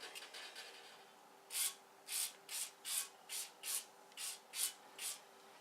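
Hand scrubbing strokes on a dull light-fixture part: faint rubbing at first, then about ten brisk back-and-forth strokes, roughly three a second, starting about a second and a half in.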